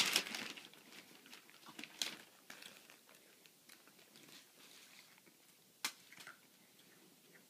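Wrapping paper crinkling and rustling as it is handled, with a loud crinkle at the very start and a few sharp taps, the clearest about six seconds in.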